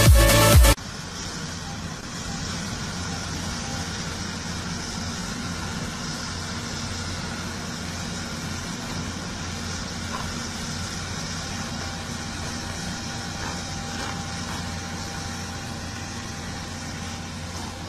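A brief snatch of music cuts off under a second in, then a heavy excavator's diesel engine runs steadily at idle.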